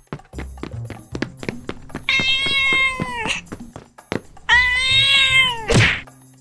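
A cat meowing twice, two long drawn-out meows, over background music with rapid clicks. A sharp hit sounds just after the second meow, near the end.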